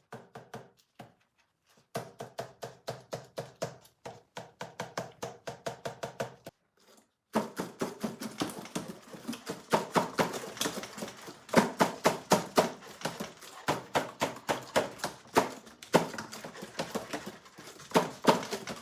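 Fast, uneven run of sharp clicks, several a second, from a handmade work-in-progress piece being handled. The clicking stops briefly about six and a half seconds in, then resumes louder.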